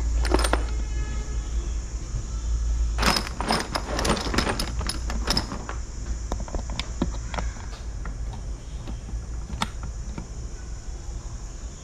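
Small hard parts clinking and rattling as they are handled. A dense flurry of clicks comes about three to five seconds in, with scattered single clicks after, over a steady low hum.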